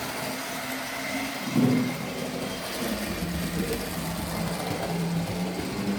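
Model train running fast around the layout: a steady motor hum and wheel rattle on the track, with a brief louder swell about one and a half seconds in.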